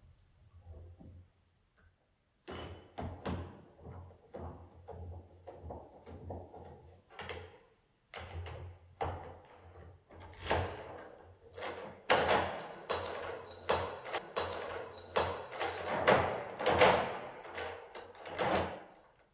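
Key working a multi-point door lock through a newly fitted security escutcheon. It makes a rapid run of metallic clicks, clacks and sliding clunks as the cylinder turns and the bolts are thrown and drawn back. The sounds begin a couple of seconds in and grow louder and denser toward the end.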